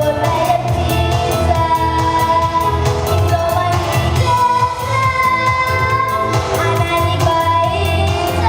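A female vocalist singing a pop song, holding long notes over instrumental accompaniment with a steady beat and a prominent bass line.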